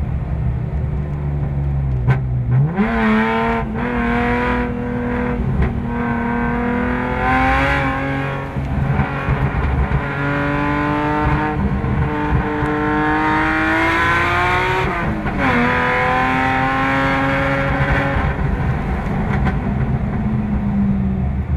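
Car engine heard from inside the cabin while driving on a track: the revs jump up about two and a half seconds in, then climb slowly under acceleration. Around fifteen seconds the pitch drops at a gear change and climbs again, easing off near the end.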